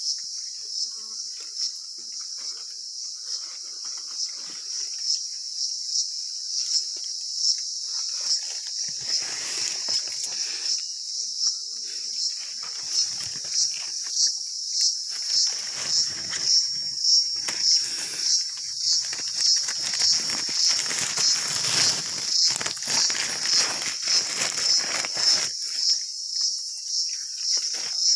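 A chorus of insects trilling in a steady high-pitched band, pulsing about one and a half times a second through the second half. Leaves and stems rustle as someone moves through the undergrowth.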